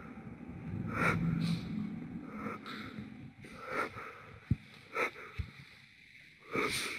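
A person's breathing and sniffing close to the microphone, with scattered steps and a couple of short, dull knocks.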